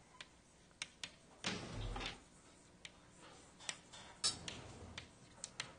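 Faint scattered clicks and taps, about eight in all, with a soft low thump about two seconds in.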